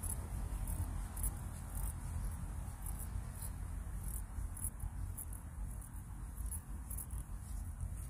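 Insects chirping in a high, steady trill that pulses brighter about twice a second, over a low rumble.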